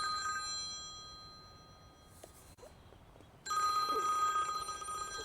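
Mobile phone ringtone of steady high tones. It fades away over the first couple of seconds, goes quiet, then rings again from about three and a half seconds in.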